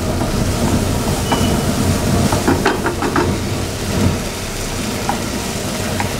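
A spatula stirs and scrapes chicken pieces in a thick spinach and cashew-paste gravy around a nonstick frying pan over a gas flame, with the food sizzling. Short scraping knocks cluster in the middle, over a steady low kitchen rumble.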